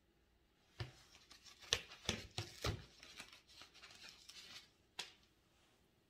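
A dried bottle gourd and its dry stem handled and turned by hand: faint dry rustling and crackling with several sharp clicks, the loudest a little under two seconds in, and one last click near the end.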